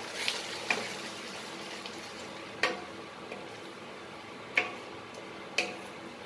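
Tomato paste frying in hot oil with onion masala in a stainless steel kadai, with a steady sizzle as a wooden spatula stirs it. A handful of sharp knocks of the spatula against the pan stand out, about five over the stretch.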